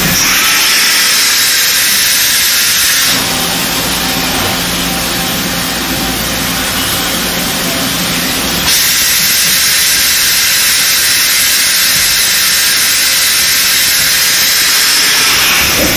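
OKK HM-100S horizontal machining center changing pallets: a loud, steady hiss, broken about three seconds in by a lower mechanical hum that lasts some five seconds, then the hiss again until just before the end.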